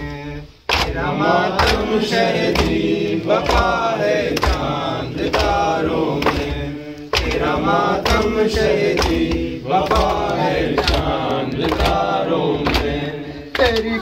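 Men chanting an Urdu noha (mourning lament), led by one voice, over a steady beat of hands striking chests in matam, a little under one strike a second.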